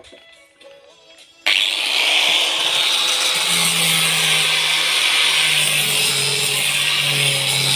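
Handheld angle grinder grinding a steel spade blade: a loud, steady grinding hiss that starts abruptly about a second and a half in and holds without a break. Before it, only a few faint clicks.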